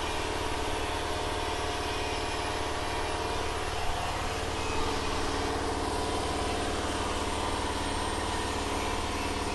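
A steady engine hum, like an engine idling, unchanging in pitch, with two faint knocks about four and five seconds in.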